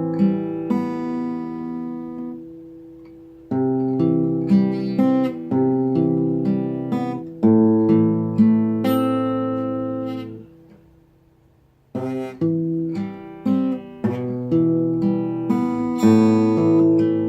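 Acoustic guitar played in slow chords, fretted with fewer fingers, each chord struck and left to ring. The playing fades away about ten seconds in and picks up again a second or so later.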